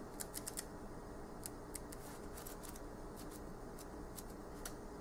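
Pages of a small paperback guidebook being leafed through: a quick run of papery flicks at the start, then single page flicks every few tenths of a second.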